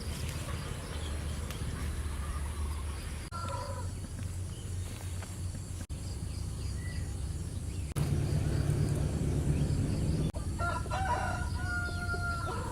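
Rooster crowing: a short call about three seconds in and a longer drawn-out crow near the end, over a steady low rumble.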